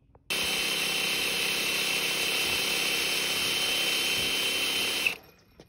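Electric drill running steadily as its twist bit bores through a black steel bracket, then stopping abruptly about five seconds in.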